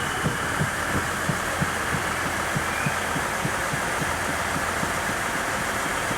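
KiHa 110 series diesel railcar stopped at the platform with its engine idling, a steady low throb at about three beats a second under a hiss.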